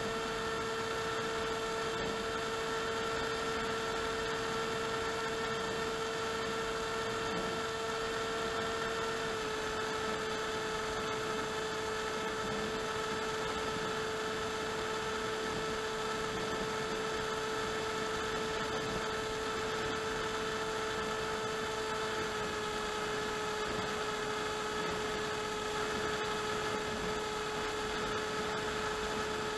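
Brushless electric motor and propeller of an AXN Clouds Fly FPV plane, heard through its onboard Mobius camera, whining steadily at cruise over a steady hiss; the pitch drops slightly twice.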